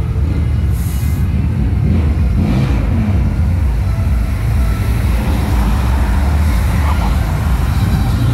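Cars and trucks driving past on the road, a steady low engine and road rumble.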